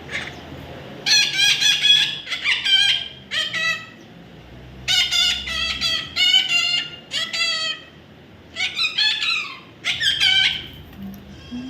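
A baby parrot calling: quick runs of short, pitched calls, in about eight bursts with brief pauses between them.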